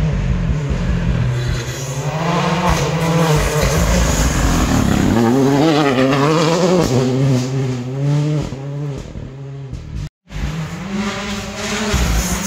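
Ford Fiesta rally car driven hard on gravel, its engine revving up and dropping again and again through quick gear changes as it comes past close by. Just after ten seconds in the sound cuts out for a moment, and then another rally car's engine is heard approaching from a distance.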